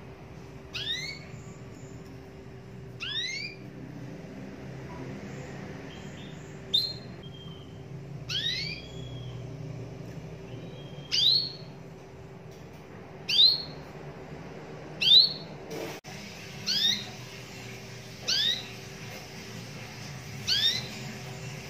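Domestic canary giving short rising call notes, one about every two seconds, ten in all, over a faint steady hum.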